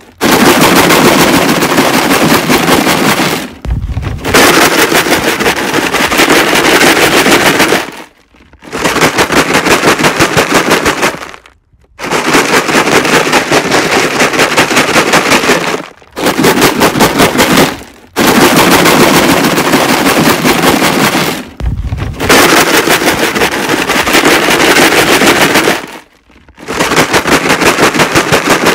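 A plastic jug filled with rocks, shaken hard: a loud, rapid rattle of stones against the plastic in bursts of a few seconds each, with short pauses between them, about eight bursts in all.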